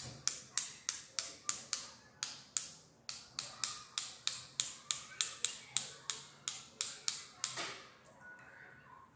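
Paintbrush tapped repeatedly against a second brush to spatter watercolour paint: a run of sharp wooden taps, about three a second, with a short pause about two seconds in, stopping a second and a half before the end.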